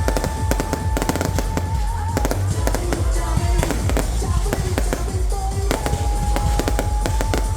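Fireworks display with rapid crackling bangs and deep booms, alongside music with a long held note in the first two seconds and again about six seconds in.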